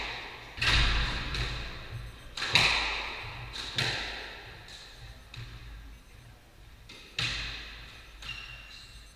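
Squash ball being struck by rackets and hitting the court walls: four loud smacks at irregular gaps of one to three seconds with fainter knocks between, each ringing on in the court's echo.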